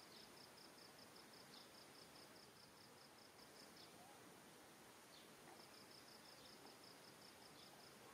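Faint outdoor ambience: a quiet hiss with a high, rapidly pulsing insect chirp, in one run of about three seconds, then a second run starting about five and a half seconds in.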